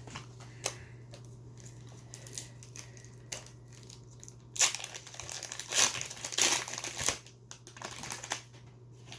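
Foil trading-card pack wrapper being torn open and crinkled by hand: light handling clicks at first, then louder crinkling and tearing from about halfway.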